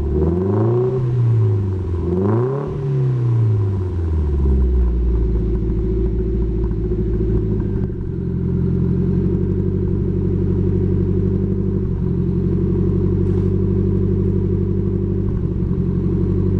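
Nissan SR20DET turbocharged four-cylinder engine on 256 Tomei Pon cams, heard through a custom exhaust, revved twice in quick blips and then settling to a steady idle about four seconds in.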